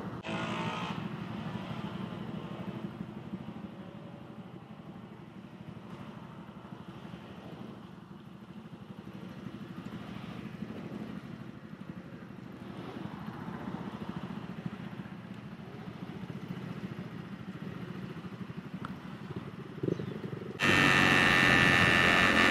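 Small-capacity motorcycle engine running steadily under way, its note swelling and easing a little. Near the end a much louder, harsher noise cuts in abruptly.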